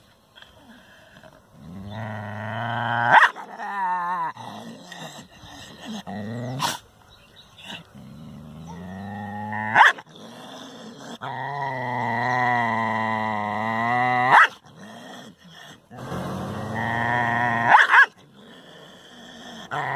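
A dog growling aggressively at its own reflection in a mirror: about four long, wavering growls that build in loudness, each cut off by a sharp bark or snap.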